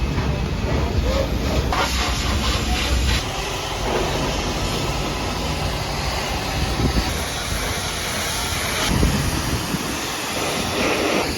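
A high-pressure washer jet spraying water against a truck's bodywork, a steady hiss of spray, with a deeper rumble through the first three seconds or so.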